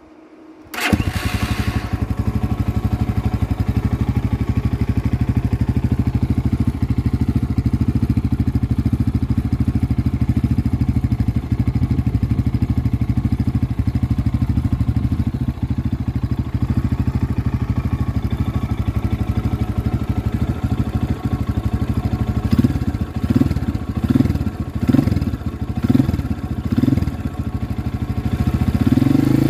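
Shineray Fireguard Trail 250's single-cylinder 250cc engine, breathing through an aftermarket AliExpress Akrapovic HP-style muffler, starts about a second in and idles steadily. Near the end the throttle is blipped about six times in quick succession, then the engine is held at higher revs.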